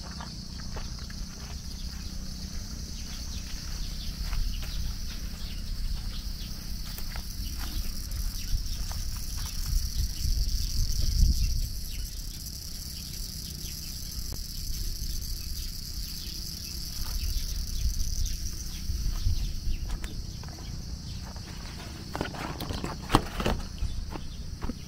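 Steady high-pitched drone of summer insects, with faint footsteps on a path. A low rumble swells about ten seconds in.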